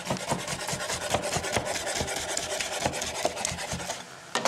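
Chef's knife sawing back and forth through cooked steak on a plastic cutting board, the blade tip kept on the board, giving a rapid run of rasping scrapes. The strokes stop about four seconds in, and a single sharp knock follows.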